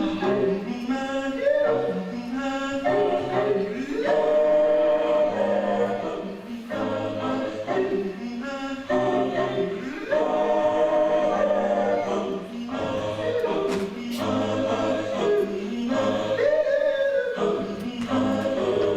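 Music: a choir singing in phrases a few seconds long.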